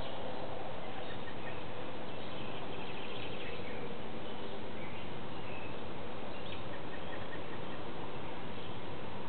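Steady hiss of background noise with faint, scattered bird chirps.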